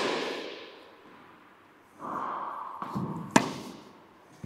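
A tennis ball struck with a racket on a topspin backhand: a sharp pop about three and a half seconds in, ringing out in a large echoing indoor hall. The echo of an earlier hit fades at the start, and a softer sound comes just before the strike.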